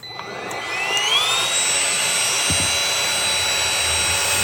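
Trucozie cordless stick vacuum switched on: its motor spins up with a rising whine over about a second, then runs steadily at full speed.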